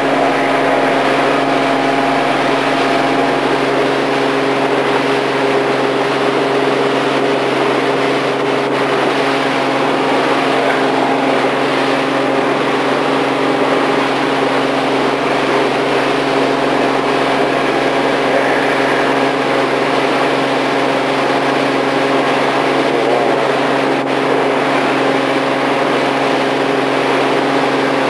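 Four Winds 195 Freedom motorboat's engine running steadily while the boat is underway: a constant drone mixed with the rush of water and wind, heard from inside the cabin at the helm.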